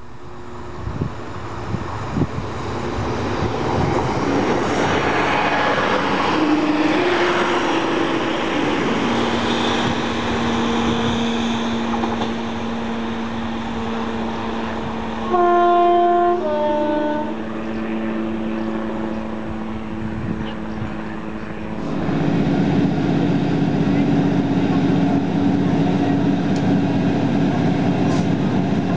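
A diesel multiple unit passes and draws away, its engine note rising and falling. About halfway through it sounds a short two-tone horn blast, one note then another. From about three quarters of the way through, the steady drone of a diesel multiple unit running, heard from inside the carriage.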